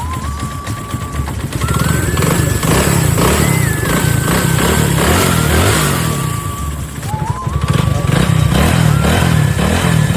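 Motorcycle engine running, a steady pulsing rumble, with background music playing over it.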